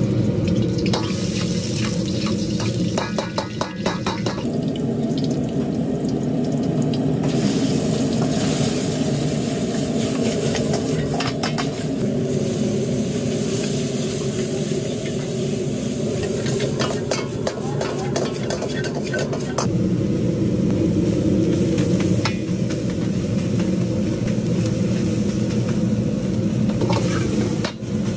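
Egg and fried rice sizzling in a wok, stirred and scraped with a metal ladle that clanks against the pan now and then. Underneath is the steady low roar of the high-heat wok burner.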